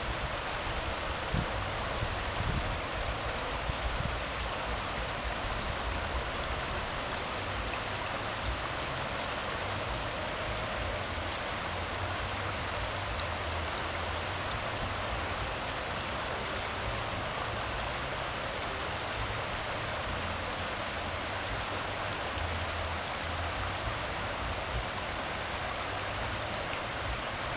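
Elbow River flowing fast and shallow over a gravel and cobble bed: a steady rush of moving water.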